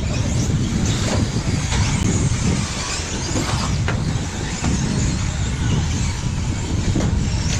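Radio-controlled race cars running around an off-road track, their motors whining up and down in pitch over a steady low rumble, with a few sharp ticks.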